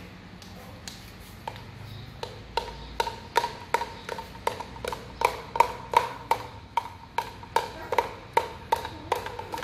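A hollow plastic toy knocked repeatedly against a hard tiled wall, about three knocks a second. Each knock gives a short hollow ringing tone. A few light taps come first, then a steady run.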